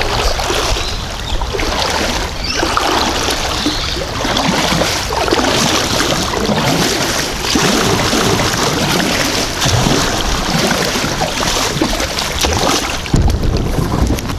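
Kayak paddle splashing in repeated hard strokes through a shallow run of rushing water, the creek being at its lowest tide.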